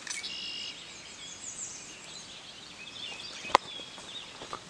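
Wild birds chirping and trilling, with a single sharp click about three and a half seconds in and a softer tick near the end.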